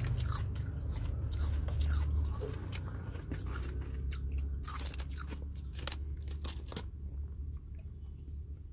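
Close-miked crunching and chewing of shaved ice in the mouth: a run of sharp, crisp crunches that thins out after about seven seconds, over a steady low hum.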